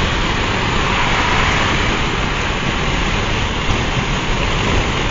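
Steady wind and road noise of a car travelling fast on a highway, heard from inside the moving car.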